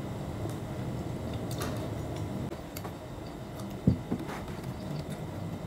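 Light clicks and taps of green mussel shells being handled and picked apart by hand over a plate, with one sharper thump about four seconds in, over a low steady background noise.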